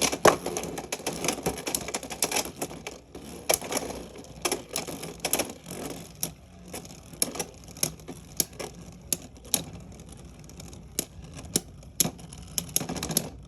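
Two Beyblade X spinning tops battling in a plastic stadium: an irregular clatter of sharp clicks and hits, dense at first and spacing out as the battle goes on.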